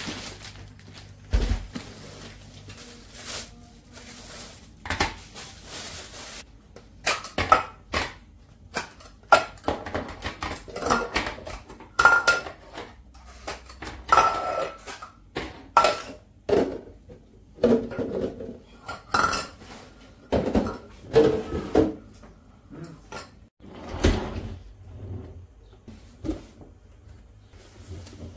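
Clear plastic food storage containers and their lids clattering as they are handled and set down on a hard countertop: many sharp knocks and clicks at an uneven pace, some with a short ringing.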